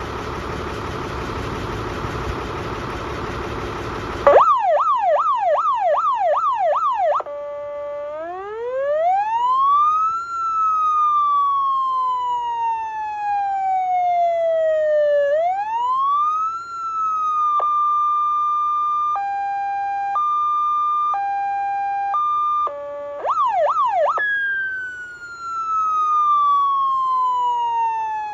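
Fire truck engine running for about four seconds. It then gives way to a Vetulani Vemar AS-100 electronic siren stepping through its tones: a fast yelp of about two sweeps a second, a slow rising and falling wail, and a two-tone high-low alternating about once a second. A short burst of yelp follows, and then the wail again, falling.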